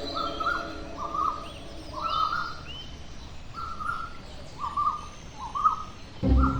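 A bird chirping over and over, short calls about once a second. Loud music comes in near the end.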